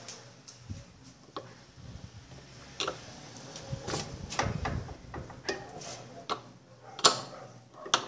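Irregular metal clicks and clinks of a wrench working on the bolts of a washing machine's drive pulley, with one louder knock near the end. The bolt is holding firm.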